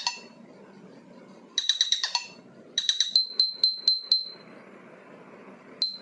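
Electronic ringtone from a phone speaker: clusters of rapid, high-pitched beeps, each lasting about half a second, repeating every second or so, one cluster trailing off in a few slower chirps.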